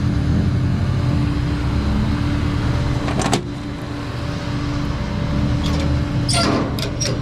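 Tow truck engine idling steadily, with a few short clanks about three seconds in and again near the end.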